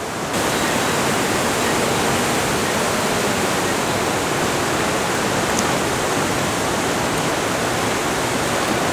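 Water rushing over a weir swollen by heavy rain: a loud, steady rush of white water with no pitch to it. It sets in abruptly just after the start.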